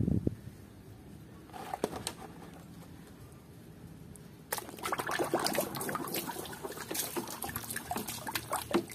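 Water sloshing and splashing in a plastic basin as hands wash a muddy plastic toy. There is a brief splash at the start, then it is fairly quiet, and from about halfway the splashing becomes steady and busy with many small drips and slaps.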